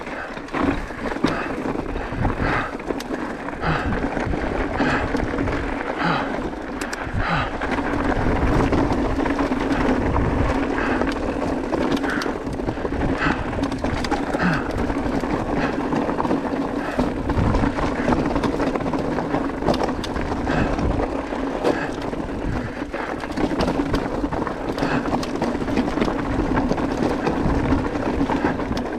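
Mountain bike riding down a rocky dirt trail: tyres rolling and crunching over loose stones, with frequent sharp knocks and rattles from the bike over the bumps and a steady low hum underneath.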